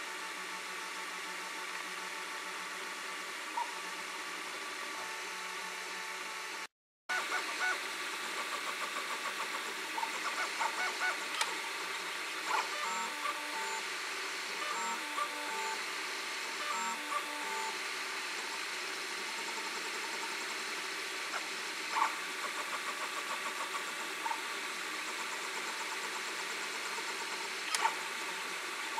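Ord Bot 3D printer running a fast print: its stepper motors sing in short, quickly changing tones as the print head darts about, over a steady whir, with a few sharp ticks. For about the first seven seconds only the steady whir is heard, then the sound breaks off briefly before the motor tones begin.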